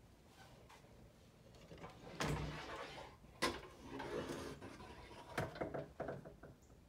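A pair of panelled wooden doors being opened: a rubbing swish about two seconds in, a sharp click about a second later, then a run of small knocks and rattles.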